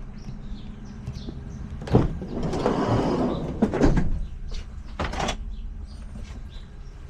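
A sliding door being worked: a sharp click, then about a second of rolling along its track, followed by several more clicks and knocks.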